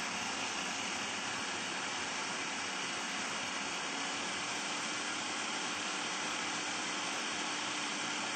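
Food processor running steadily at full speed, a motor hum under the whir of the blade pureeing red pepper, garlic and lemon juice.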